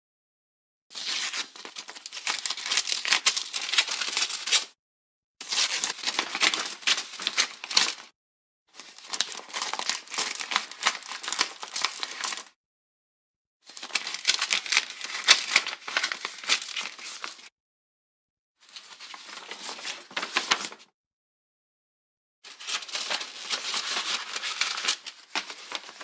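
A paper letter being opened: the envelope tearing and the paper crinkling, in six separate takes with silence between them.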